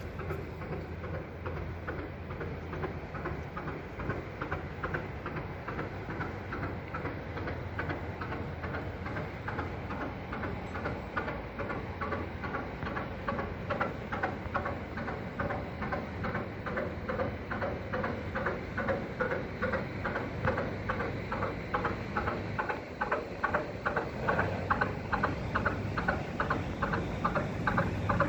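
1954 Industrie 2VD6 80 hp two-cylinder marine diesel running slowly, an even knocking beat of about four strokes a second, getting a little louder near the end.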